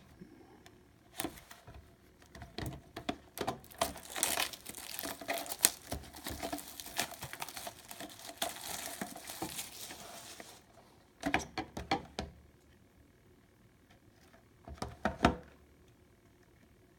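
Plastic wrapping crinkling and tearing as a sealed hockey card box is unwrapped for several seconds, followed by two short bursts of handling knocks and rustles.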